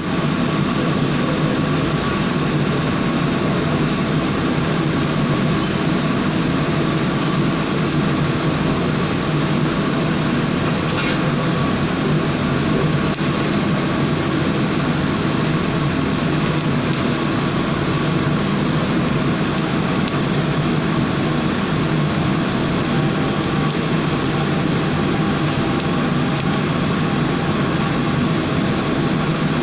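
TIG welding arc on a custom gas tank, buzzing steadily without a break, with a constant low hum and a thin high tone.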